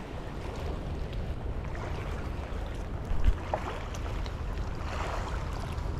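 Wind buffeting the microphone over small waves lapping against shoreline rocks, with a single short thump about three seconds in.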